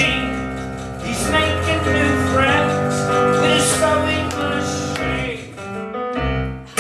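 Unaccompanied live singing: a wordless vocal melody with held notes, dying away about five seconds in.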